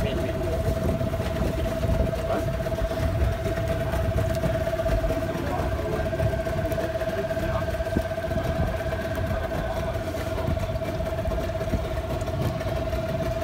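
Motorboat engine idling steadily, a constant even hum with a low rumble beneath.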